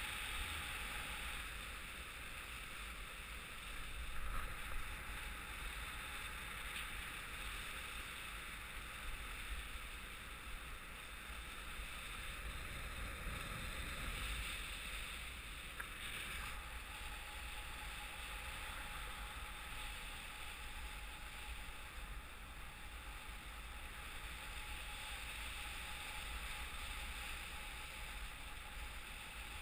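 Steady rush of airflow over the camera microphone in paraglider flight: an even hiss over a low rumble, with a few brief louder gusts about four seconds in.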